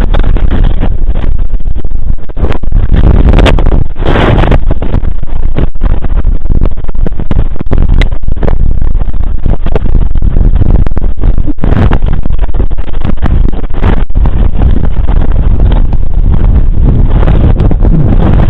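Wind buffeting a helmet-mounted camera microphone during a fast ski descent, loud and distorted, with frequent short knocks.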